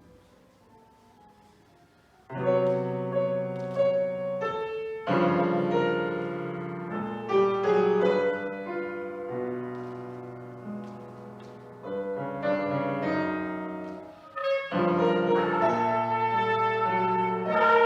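Contemporary chamber music: after about two seconds of near quiet, loud piano chords are struck and left to ring and fade, with fresh attacks several times and sustained brass tones over them.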